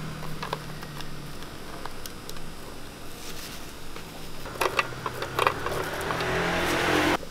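Toppings scraped and tipped out of plastic tubs with a wooden chopstick: light taps and clicks, with a cluster of louder clicks past the middle as wafer pieces tumble out. Near the end a motor-like hum rises in the background and cuts off suddenly.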